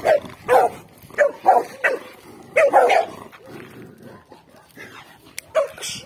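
Dog barking in quick repeated barks, about seven in the first three seconds, then a short lull and two more barks near the end.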